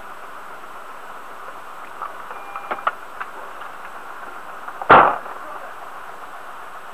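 Steady background noise inside a stopped vehicle, a few light clicks around the middle, then one heavy thump about five seconds in.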